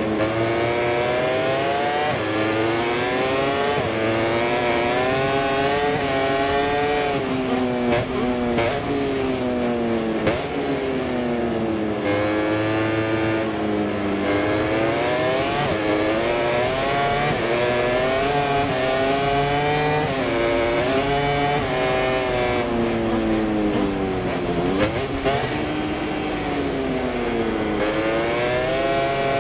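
MotoGP racing motorcycle engine heard on board at race pace, its pitch climbing hard through the gears and then dropping sharply as it shifts down for corners, again and again.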